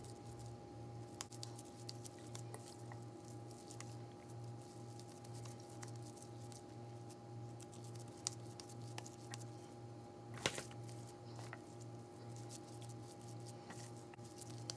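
Hands squishing and kneading raw ground beef meatball mixture in a stainless steel bowl, with small wet clicks and pats, and a sharp click about ten seconds in. A steady low pulsing hum runs underneath.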